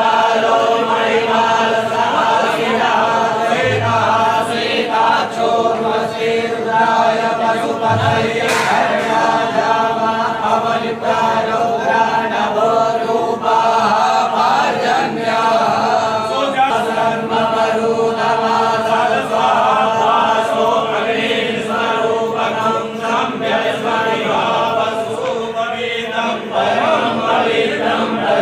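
A group of men chanting Vedic mantras together in a steady, unbroken chant: the priests' recitation that consecrates sacred threads (yajnopavita).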